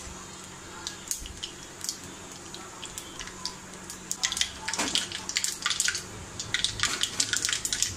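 Mustard seeds spluttering in hot oil for a tempering: scattered pops at first, then a dense crackling from about four seconds in.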